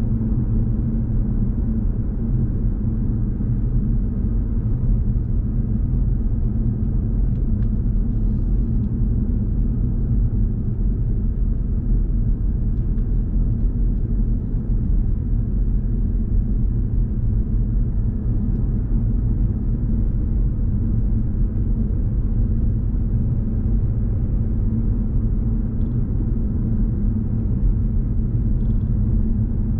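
A car driving at a steady speed: continuous low road and engine rumble.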